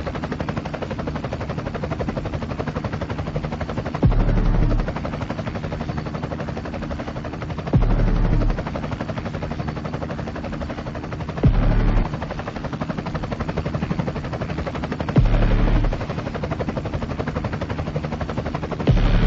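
Helicopter rotor beating in a fast, steady chop, with a louder low rumble swelling for under a second about every four seconds.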